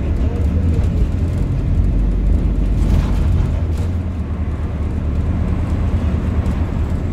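Cabin noise inside an Alexander Dennis Enviro400H hybrid double-decker bus on the move: a steady low rumble from the drivetrain and road.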